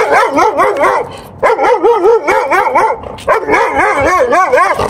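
A dog barking excitedly in quick, high-pitched barks that rise and fall, in three runs with short breaks between.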